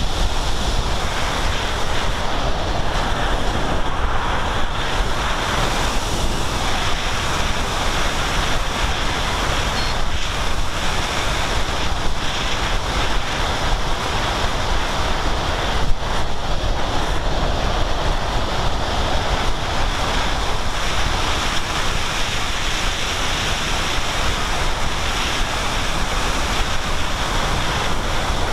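Steady wind rushing over the microphone of a camera riding on a Sky Climber model plane in flight, with a faint steady high whine beneath it. A single brief click a little past halfway.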